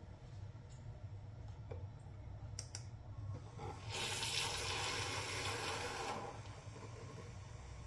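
Nanofoamer V2 handheld milk frother, lithium version, spinning at 4000 rpm in a metal jug of whole milk. After a couple of light clicks, a loud hiss of the milk being aerated starts about four seconds in and lasts about two seconds, then the sound drops to a quieter steady swirl as the milk is textured.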